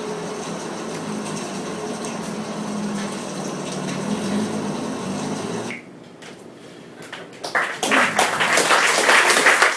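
A steady rushing background sound runs for about six seconds and then cuts off. About a second and a half later an audience starts applauding.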